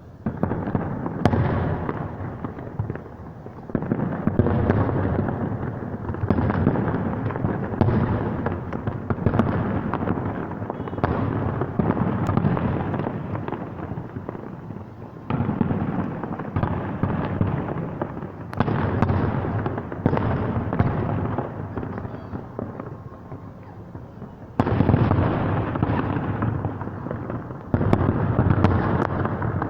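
Fireworks display: aerial shells bursting one after another in a dense barrage, each volley starting suddenly and rumbling on for a few seconds. Fresh loud volleys start about 15, 18 and 25 seconds in.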